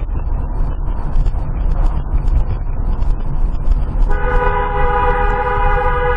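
Low road and engine rumble heard from inside a moving car, then about four seconds in a vehicle horn starts and is held in one long, steady blast.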